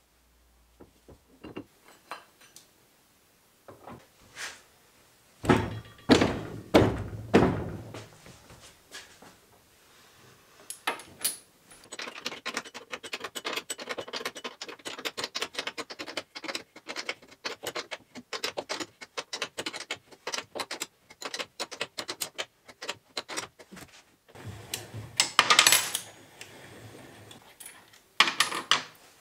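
Metal drivetrain parts clinking and clanking as wheel shafts and drive sprockets are fitted into the Argo 8x8's hull. There are loud clanks a few seconds in and again near the end, and a long run of rapid clicking in the middle.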